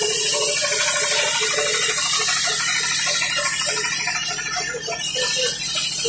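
Large sawmill band saw cutting a mahogany beam: a steady noisy whir of blade through wood over the motor's hum, thinning out and getting quieter after about three to four seconds.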